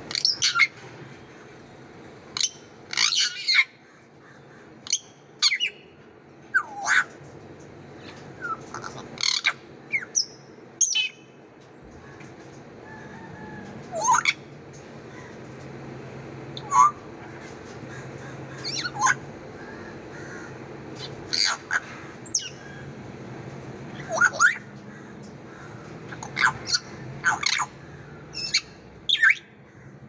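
African grey parrot calling: a string of short squawks and whistles, many sliding up or down in pitch, one every second or two.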